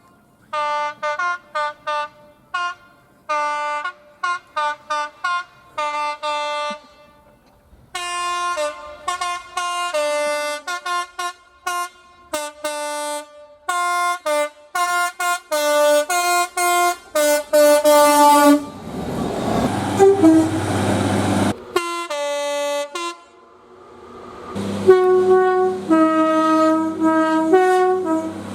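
British train horns sounding many short high and low toots in quick sequences, then longer held notes. About two-thirds of the way through comes a loud rushing noise with a low rumble, followed by more horn notes over a steady low drone.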